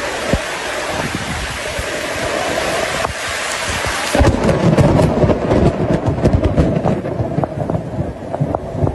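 Steady hiss of heavy rain in a thunderstorm. About four seconds in, the sound changes abruptly to a deep rumble with many sharp crackles.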